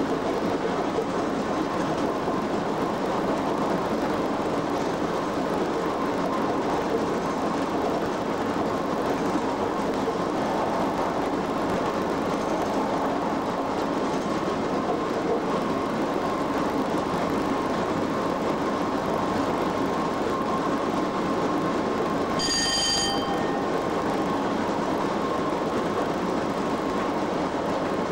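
Cab noise of a Class 87 electric locomotive running at speed: a steady rumble of wheels on rail with a faint steady whine. About 23 seconds in, a brief high ringing tone sounds for about half a second.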